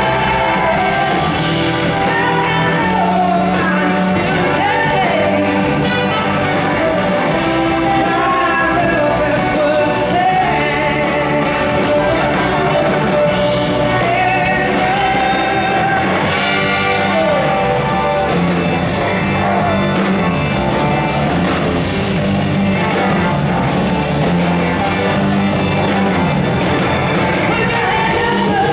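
Live soul-rock band playing, with a woman singing lead over electric guitars and drums, heard from the audience in a large hall.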